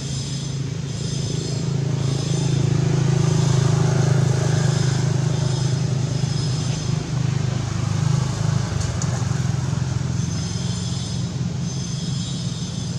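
A motor vehicle engine running with a steady low hum that swells louder over the first four seconds and eases off again in the second half.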